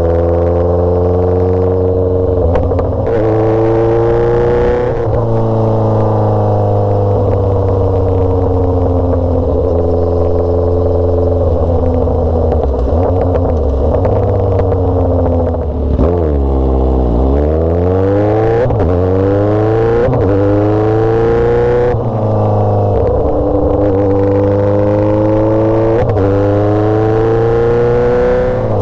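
Motorcycle engine under way, revving up and dropping back in pitch at each gear change. About halfway through it falls to a low rev and then climbs again as it slows and pulls away.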